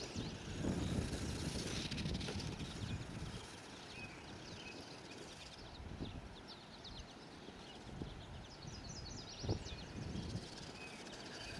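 Wind buffeting the microphone in uneven gusts, heaviest in the first couple of seconds, with small birds chirping throughout and a quick trill of short repeated notes near the end.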